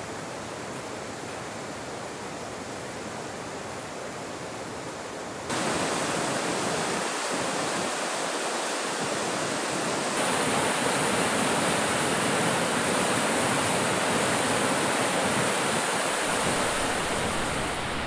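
White water rushing over rocks, a steady rushing noise. It jumps louder about five and a half seconds in and turns brighter and more hissing about ten seconds in.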